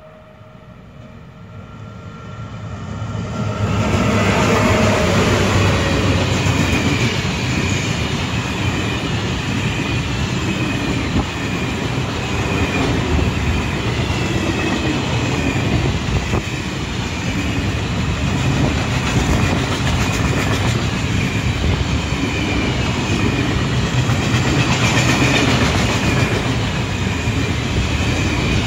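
Freight train hauled by two VR Sr1 electric locomotives approaching and running past, growing louder over the first four seconds. The wagons then go by in a steady rumble and clatter of wheels on rail, with faint wavering high tones above it.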